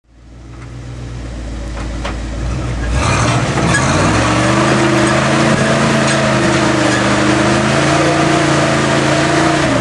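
Propane-fuelled International Scout's engine crawling on wet rock. It fades in at a low steady note, revs up about three seconds in, holds there under load for several seconds, then drops off sharply just before the end.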